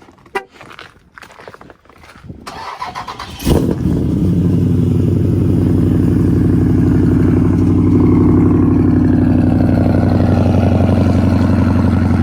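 Dodge Charger Scat Pack's 6.4-litre HEMI V8 cold-started: a few light clicks, about a second of cranking, then it catches with a loud flare about three and a half seconds in and settles into a steady idle. It starts cleanly on 93-octane fuel just switched back from E85.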